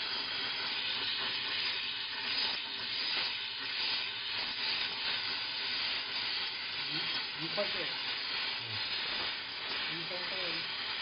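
Steam mop releasing steam: a steady hiss.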